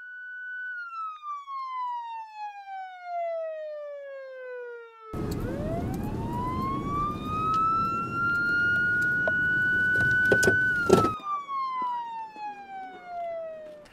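Police car siren wailing: the tone falls in pitch, winds back up and holds, then falls again near the end. From about five seconds in to about eleven the car's engine and road noise run loud underneath, with a few knocks near the end of that stretch.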